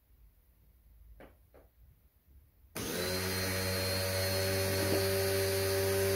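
A pressure washer starts abruptly just under three seconds in and runs steadily, a loud buzzing motor with a hiss over it. Before it starts there are only a couple of faint knocks.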